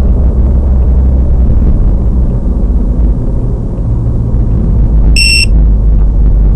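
Steady low rumble of a car's engine and tyres on the road, picked up inside the cabin. A little over five seconds in, one short, high electronic beep sounds.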